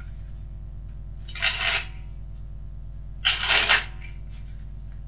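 A lightly used deck of Jetsetter black playing cards riffled twice, about two seconds apart, each a quick half-second rattle of cards flicking off the thumb.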